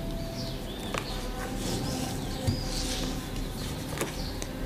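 Birds chirping and twittering in the background in short, high calls, with a few faint clicks from handling small craft materials, one about a second in and one near the end.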